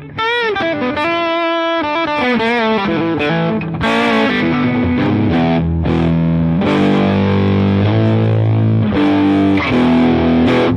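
Electric guitar played through a JOYO overdrive pedal with its bass control turned fully up, giving a bass-heavy overdriven tone with a touch of reverb. A lead note is bent with vibrato near the start, then sustained chords ring out.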